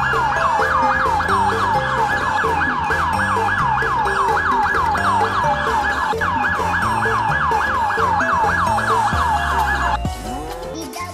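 Electronic toy police siren: a rapid warbling wail, about three or four sweeps a second, with a music track underneath. The siren cuts off near the end.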